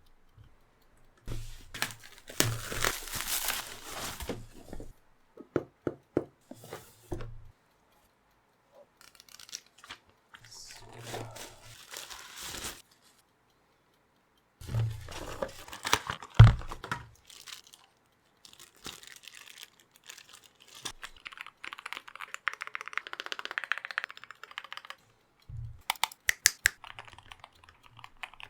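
Keyboard packaging being unboxed by hand: irregular bursts of tearing and crinkling with quiet gaps between them, and one sharp thump a little past halfway.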